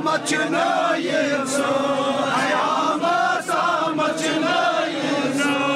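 Large group of men chanting Sufi devotional verses together in unison, the sung line rising and falling without a pause.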